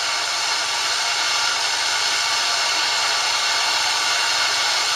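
Amateur radio receiver hiss: steady static of band noise, with no readable reply from the distant station, whose signal is lost in the noise under poor band conditions.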